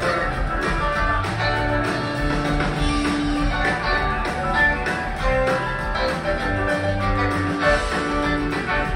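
Live rock band playing, with electric guitars over bass, drums and keyboards.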